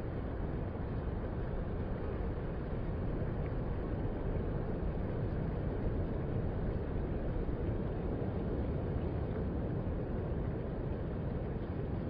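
Ocean surf breaking offshore: a steady, even low rumble of waves with no separate crashes standing out.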